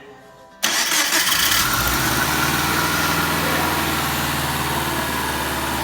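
Subaru flat-four boxer engine started for the first time after a timing belt, tensioner and idler replacement. It catches about half a second in and settles into a steady, quiet idle with no knock, which the mechanic puts down to the failed timing belt tensioner that had been knocking.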